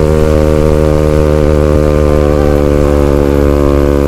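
Yamaha WR155R's single-cylinder engine running at a steady pitch under even throttle while the bike is ridden.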